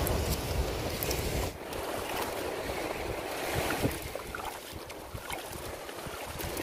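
Water sloshing in a metal bowl as raw prawns are stirred and rubbed clean by hand. Wind buffets the microphone, heaviest for the first second and a half, with surf behind.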